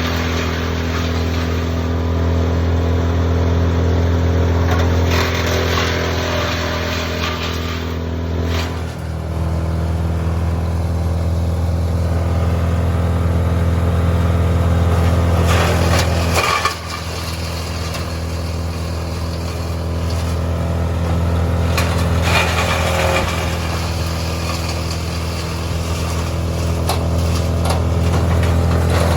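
A large engine running steadily with a low hum, its sound shifting about a third of the way in and dipping briefly a little past halfway.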